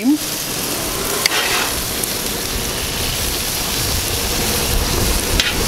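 Sauce-basted chicken feet and steaks sizzling on a gas grill over direct flame: a steady hiss, with a light click about a second in and another near the end.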